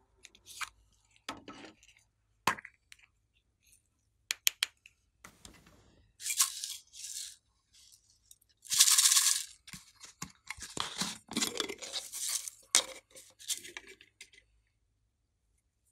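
Hands opening and handling small plastic novelty containers and tipping out sprinkles: scattered plastic clicks, then several rough scraping, rustling bursts, the loudest about nine seconds in.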